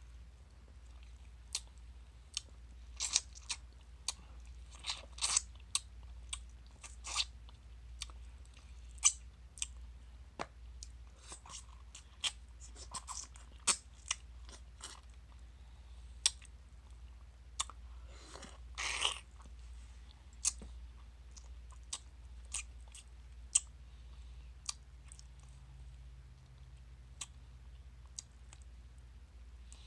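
Close mouth sounds of eating a ripe mango: biting, sucking and chewing the soft pulp off the fruit and its peel. Many sharp wet smacks and clicks, irregularly spaced, with one longer, noisier sound a little past the middle.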